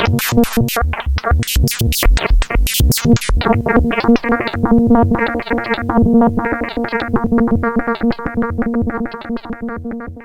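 Modular synthesizer patch playing electronic music. For the first three seconds or so it has kick-drum-like thumps and bright noisy hits. Then it settles into a fast run of short synth notes on one steady pitch, which fades out near the end.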